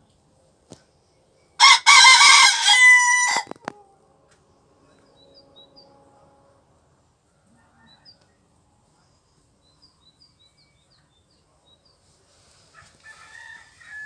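Sebright bantam rooster crowing once, a loud crow lasting about two seconds that begins about a second and a half in. Softer clucking follows near the end.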